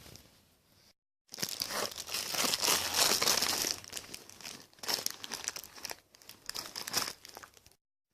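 Crackly, crinkling rustle in irregular surges, like handling noise rubbing on a microphone. It starts abruptly about a second in and cuts off abruptly near the end.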